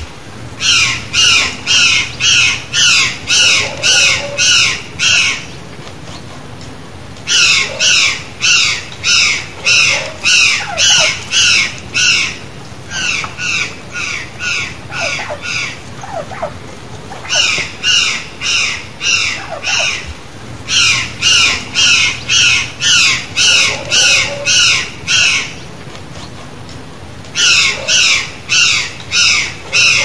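Gralha-cancã (white-naped jay) giving loud, harsh calls repeated about two to three times a second, in bouts of several seconds broken by short pauses.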